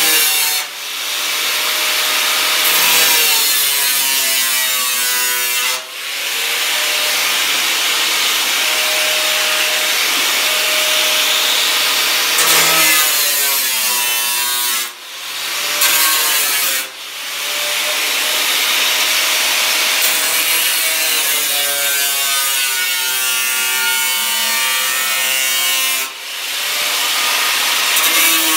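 Angle grinder with a cutoff wheel cutting through old sheet-steel body panel, a steady loud hiss and whine. The whine sags and recovers as the wheel is pushed along the cut, with five short dips in level where the wheel eases off the steel.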